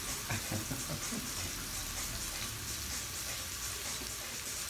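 Marinated pork sizzling in a frying pan on a gas stove: a steady hiss of frying.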